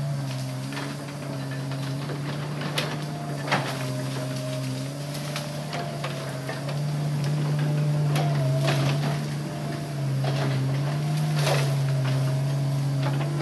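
Hitachi Zaxis 200-5G excavator's diesel engine running under working load while the machine pushes through undergrowth. It gives a steady drone whose pitch steps up and down a little a few times, with several sharp knocks and cracks.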